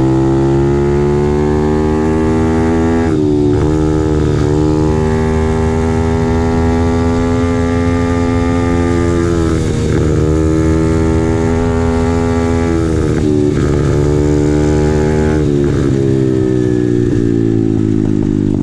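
Apollo RFZ 125cc pit bike's single-cylinder four-stroke engine running hard under throttle while riding, its pitch dipping briefly and climbing again several times as the gears change.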